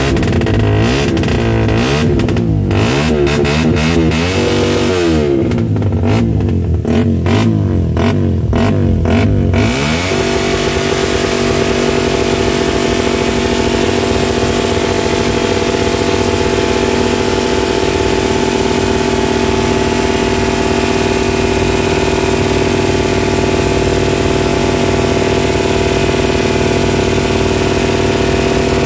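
Motorcycle engine revved repeatedly, its pitch sweeping up and falling back several times. From about ten seconds in, it is held steady at high revs.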